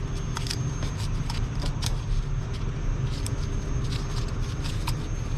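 Gloved hands handling a plastic oil-filter cap and seating a new rubber O-ring on it: scattered light clicks and rubbing over a steady low rumble.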